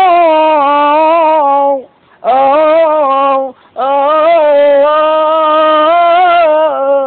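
A man singing a Spanish Gypsy song unaccompanied in a high voice, drawing out long wavering, ornamented notes. There are three phrases, with short breaks for breath about two and three and a half seconds in, and the last phrase tails off more softly near the end.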